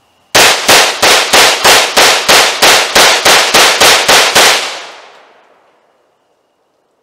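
AR-15 rifle fired rapidly in semi-automatic, about a dozen shots at roughly three a second, the last report echoing and fading away over about a second and a half.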